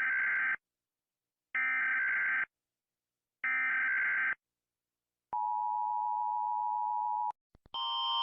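Emergency Alert System alarm: three short bursts of warbling data tones, then a steady two-second dual-tone attention signal. Near the end a louder alarm with alternating tones starts.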